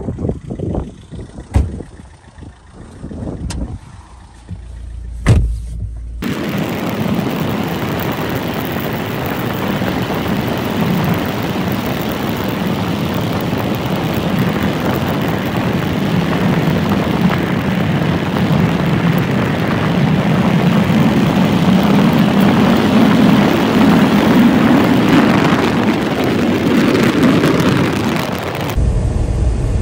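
About six seconds of wind buffeting the microphone with a few sharp knocks, then steady road and engine noise from inside a moving vehicle on a highway, its low drone swelling somewhat in the second half.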